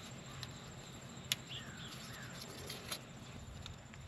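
Faint clicks of a small Phillips screwdriver prying at a plastic ignition-coil wiring connector; the two sharpest come about a second and a half apart. Faint birds chirp in the background.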